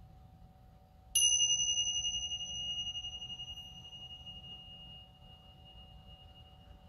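Tingsha cymbals struck together once, about a second in, leaving a high, pure ringing tone that wavers as it slowly fades over several seconds. The chime marks the close of the meditation.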